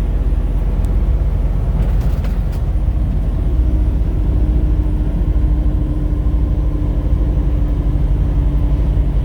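Steady low rumble of a car travelling on the highway, heard from inside the cabin: road and engine noise, with a faint steady hum joining about three seconds in.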